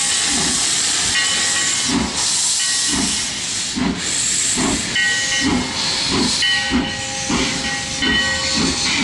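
Steam locomotive starting to pull away: a loud steady hiss of escaping steam, with slow, soft chuffs and its bell ringing over and over.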